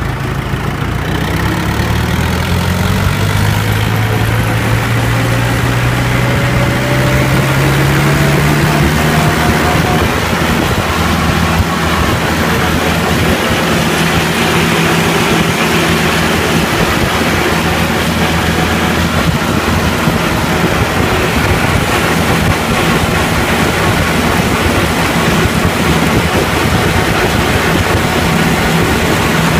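Tractor's diesel engine running under way, its note rising over the first nine seconds or so as it picks up speed, then holding a steady pitch.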